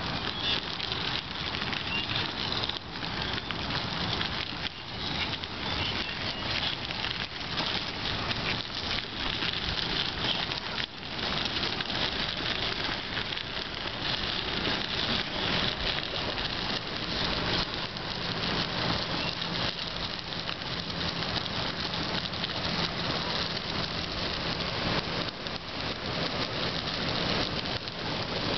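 Bicycle tyres rolling over a gravel towpath: a steady, gritty crackling hiss.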